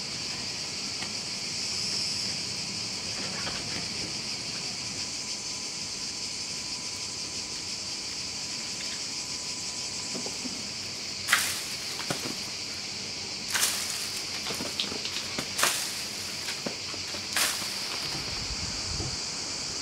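Cicadas buzzing, a steady high drone, with a handful of sharp clicks in the second half.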